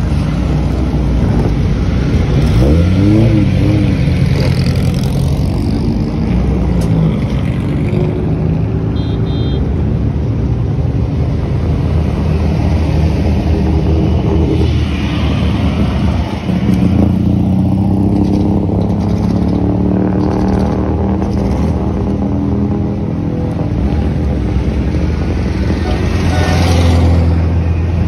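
Engines of 1950s sports racing cars running at low speed and being blipped as the cars pull away one after another. A rev rises and falls about three seconds in, and a deep, steady engine note grows louder near the end.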